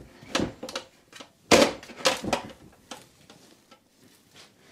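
Metal clamp latches on a galvanized steel dust-collector bin being snapped open and the sheet-metal lid lifted off: a run of metallic clicks and clanks, the loudest about a second and a half in, then a few faint knocks.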